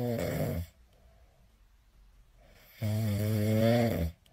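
Kitten snoring as it dozes off sitting up: one snore that ends about half a second in, then a second long snore near the three-second mark lasting over a second.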